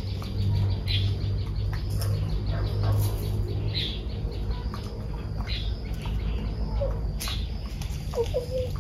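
Small birds chirping in short high calls every second or two, over a low steady hum. About eight seconds in, chickens give a couple of short low clucks.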